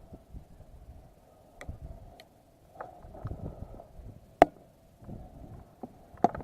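Scattered sharp snaps of airsoft guns firing, several faint ones and one loud crack about four seconds in, over low rustling of movement.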